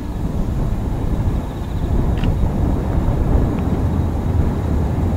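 Strong wind buffeting the microphone: a steady low rumble, with a faint short tick about two seconds in.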